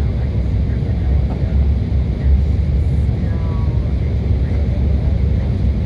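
Loud, steady low rumble of background noise, with faint short tonal traces about three seconds in.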